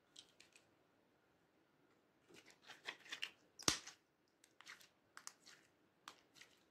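Slime being worked by hand: faint sticky clicks and crackles as pieces of slime are pressed, stretched and pulled apart, with one sharper snap a little past the middle.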